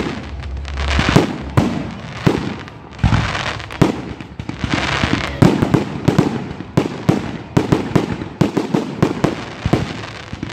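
Aerial firework shells bursting overhead: many sharp bangs at irregular intervals, coming thicker in the second half, with crackling hiss from the bursting stars between them.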